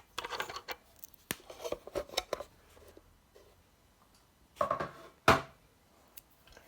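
Small metal compressor switch fittings being handled: a run of light clicks and clinks, then two louder short scraping clanks past the middle, the second the loudest.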